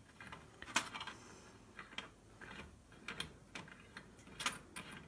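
Faint, irregular small metallic clicks and light scrapes as a burner cap is twisted by hand onto the brass burner of a Primus PT1 stove.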